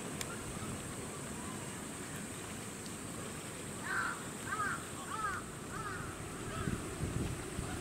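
A run of about five short, arched animal calls, each well under a second and spaced roughly half a second to a second apart, starting about halfway through, over a steady low outdoor rumble.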